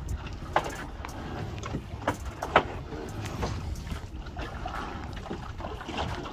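Steady wind and water noise around a small fishing boat at sea, broken by a few sharp knocks, the loudest about two and a half seconds in.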